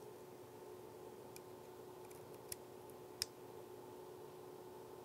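A few small clicks of a USB-C plug and inline power meter being handled and pushed into a laptop logic board's USB-C port, the sharpest about three seconds in, over a faint steady hum.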